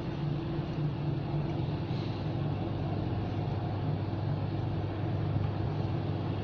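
A steady low machine hum that holds even throughout, with no breaks or changes.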